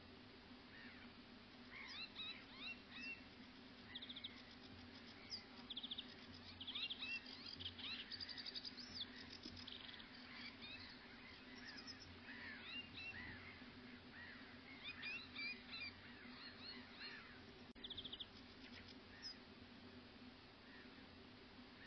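Several small birds singing together: a busy mix of short chirps, whistled notes and fast trills, over a faint steady low hum.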